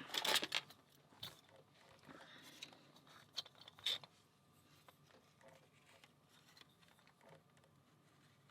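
Light clicks and taps of small metal lock parts and tools being handled while a lock is taken apart: a cluster of clicks at the start, single sharper clicks about a second in and around three and four seconds in, then only faint ticks.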